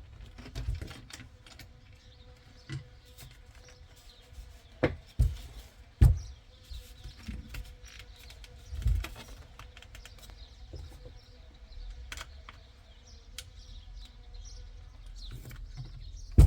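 Scattered small clicks and knocks of a screwdriver working screws into plastic steering-wheel parts, with a few louder thumps about five, six and nine seconds in.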